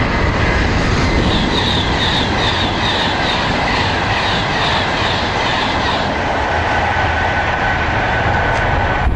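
Class 390 Pendolino electric train running past at the platform: a loud, steady rush of wheel and rail noise. A high squeak repeats about twice a second for several seconds over a thin steady whine.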